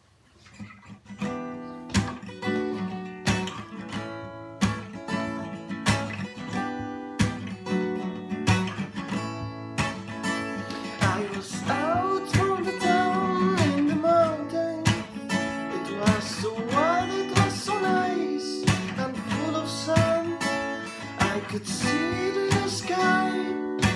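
Song intro on strummed acoustic guitar, fading in at the start. From about eleven seconds in, a wordless sung melody glides over the chords.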